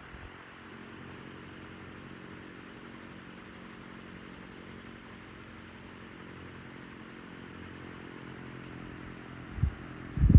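1967 Hunter CG16 16-inch commercial-grade table fan running: a steady rush of moving air over an even electric motor hum. A brief thump near the end.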